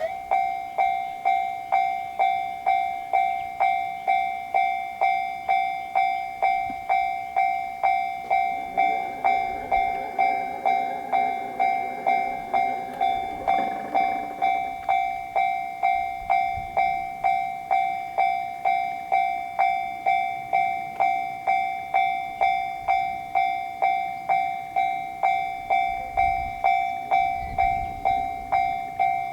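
Japanese level-crossing alarm bell starting up and ringing 'kan-kan' in even repeated strikes, a little under two a second, as a train approaches. A train's running noise comes up under the bell for several seconds in the middle.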